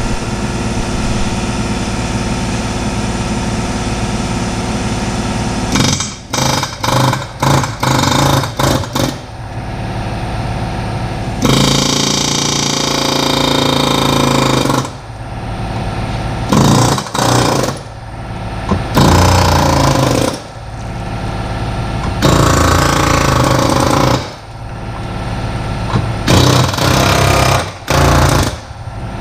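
Pneumatic hand tool hammering on a suspension part held in a bench vise, run in bursts: a quick string of short bursts, then several longer runs of one to three seconds, over a steady machine hum.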